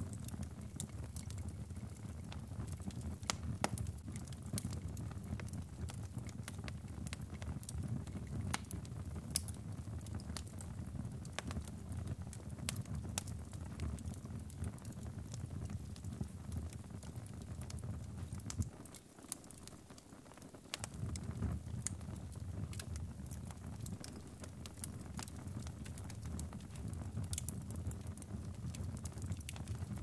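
Wood fire burning in a fireplace: scattered sharp crackles and pops over a steady low rumble of flame. The rumble briefly drops away about two-thirds of the way through.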